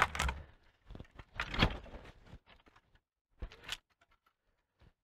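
Branches of a small tree cracking and snapping as they are pulled down and broken off by hand, with twigs rustling. There is a sharp crack at once, a longer crack about a second and a half in, and a short snap at about three and a half seconds.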